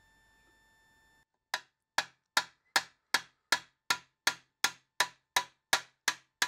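Peening hammer striking the fresh TIG welds on a thin 22-gauge steel Porsche 356 backing plate held on a dolly: sharp metal-on-metal strikes with a short ring, evenly spaced at about two and a half a second, starting about a second and a half in. The hammering cold-forges the weld area, stretching out metal shrunk by the welding heat and relieving its stress.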